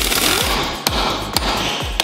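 Pneumatic impact wrench hammering on a nut, stopping about half a second in, then sharp hammer blows on a steel drift, about two a second.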